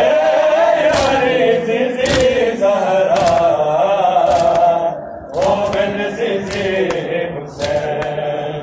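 A crowd of Shia mourners chanting a Muharram nauha in unison, with chest-beating (matam) slaps landing about once a second. The chant breaks briefly about five seconds in, then resumes.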